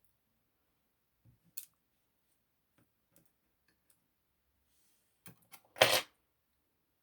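Small metal lock parts and tools clicking and tapping as a Kaba 6 dimple lock is taken apart. There are a few light clicks, then a short, louder clatter near the end.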